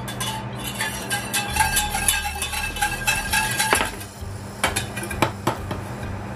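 Wire balloon whisk stirring a thin white flour mixture in a stainless steel saucepan, its wires clicking fast against the pan for about four seconds, then a few separate knocks against the metal.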